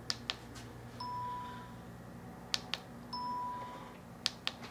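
Handi Quilter longarm's ProStitcher beeping as points are recorded with the handlebar button: two steady, mid-pitched beeps about two seconds apart, each shortly after a pair of light clicks, over a low steady hum.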